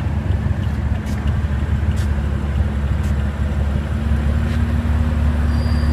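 A vehicle engine idling with a steady low drone; its hum steps up slightly in pitch about four seconds in.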